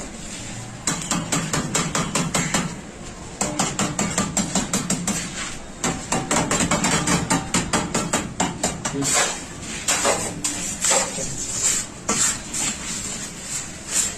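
Hammer-like blows struck in quick runs of about seven a second, broken by short pauses. Over the last few seconds they give way to slower, heavier strikes.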